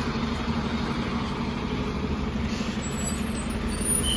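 Diesel engine of a sleeper coach bus running with a steady low hum.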